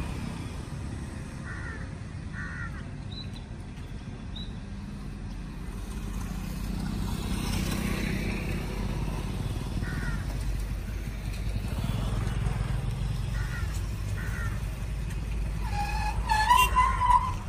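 Passing road traffic: motor vehicle and motorcycle engines make a steady low rumble that swells and fades through the middle. Near the end comes a brief wavering high tone, the loudest sound.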